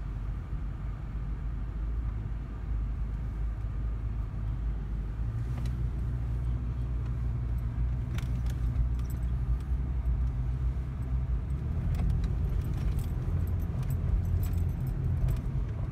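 Inside a car driving over soft sand: a steady low engine and tyre rumble that grows a little stronger about a third of the way through, with scattered light clicks and rattles from the cabin.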